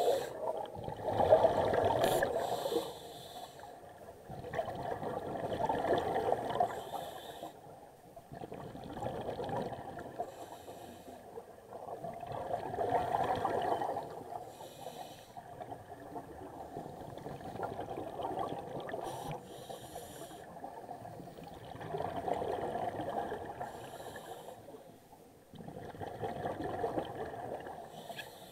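Scuba regulator breathing underwater: a bubbling gurgle of exhaled air that swells and fades about every four to five seconds, with short hissing inhalations in between.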